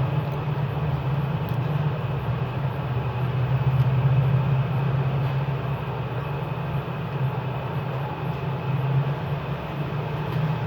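Steady background rumble and hiss with a constant low hum, with no distinct events.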